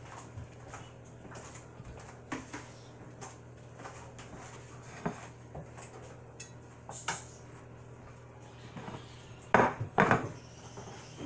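Scattered light clinks and knocks of a fork and a ceramic plate against a granite countertop, with a louder clatter of the dishes near the end.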